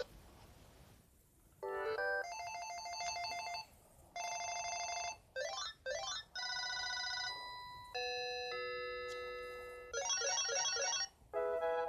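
Electronic ringtones of a Panasonic KX-TCA132RUT cordless phone handset, played one after another. They are short trilling and warbling beep patterns, quick rising chirps and simple note melodies, each lasting from a fraction of a second to about two seconds with brief gaps between.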